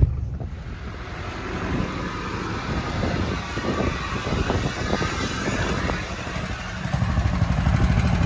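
An engine running steadily with a low rumble, getting louder about seven seconds in.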